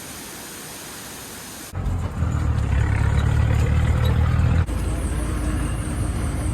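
A steady hiss that gives way abruptly, a little under two seconds in, to the loud low rumble of a motor vehicle engine. The rumble changes abruptly about two-thirds of the way through to a somewhat quieter low drone with a faint, fast, high chirping.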